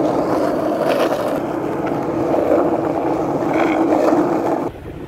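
Skateboard wheels rolling over a painted asphalt path: a loud, steady rumble that cuts off suddenly near the end.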